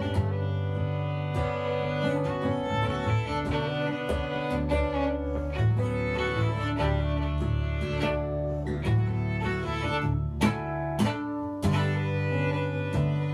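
Bowed string instruments playing: long sustained low notes with a higher line over them, cut through by many short, sharp attacks.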